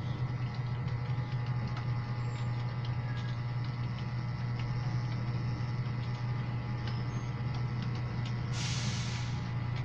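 Computer keyboard keys clicking in scattered, irregular keystrokes over a steady low electrical hum. About eight and a half seconds in, a burst of hiss lasts about a second.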